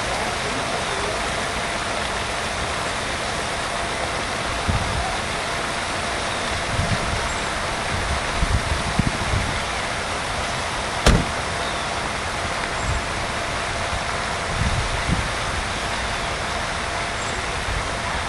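Steady outdoor rushing noise, with irregular low thumps of wind buffeting the microphone and one sharp click about eleven seconds in.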